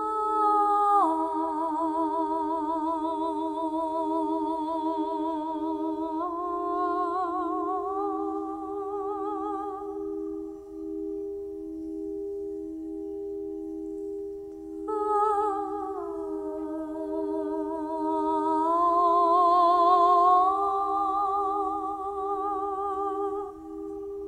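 Singing bowls ringing with a slow, steady pulsing beat, under a woman's wordless toning voice. She holds long notes with vibrato in two phrases, stepping up in pitch within each, with a pause of a few seconds in between.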